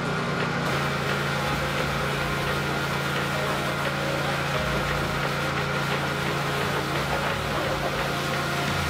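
Gas-engine pressure washer running steadily, its water jet hissing as it sprays dust off a car's paint and wheels.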